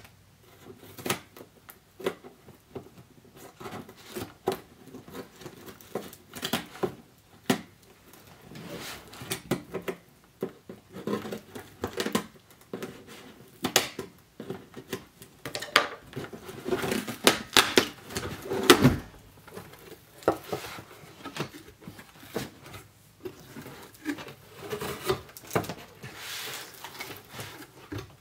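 Cardboard shipping box being opened with scissors: the blades scrape and tap along the taped seam, then the cardboard flaps are worked open. Irregular scrapes, taps and rustles, loudest about two-thirds of the way through.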